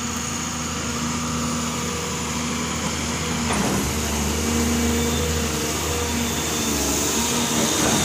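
Doosan DX220LC crawler excavator's diesel engine running steadily under hydraulic load as the upper structure swings and the boom is raised, with a thin high whine over the engine. It gets slightly louder about halfway through.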